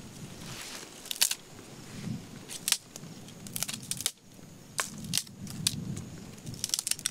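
Dry firewood sticks being snapped and handled by hand: a string of sharp, irregular cracks with rustling and scraping of wood between them.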